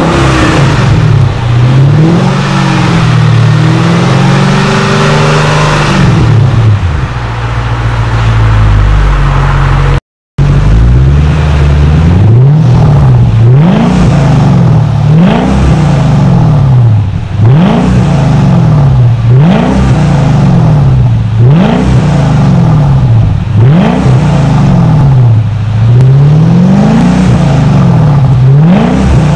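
Mercedes-Benz E55 AMG's supercharged 5.4-litre V8 revved at standstill through an aftermarket muffler kit, the exhaust note rising and falling with each press of the throttle. It cuts out briefly about ten seconds in, then comes a long run of quick blips, one about every one and a half to two seconds.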